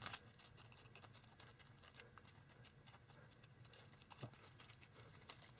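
Near silence, with faint crinkles and small ticks of tissue-foil paper being folded by hand, and one slightly clearer tick about four seconds in.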